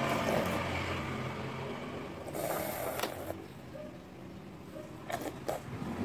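A metal spoon working in a ceramic soup bowl while someone eats: a brief scrape about halfway through and two sharp clicks of the spoon against the bowl near the end, over a steady low hum.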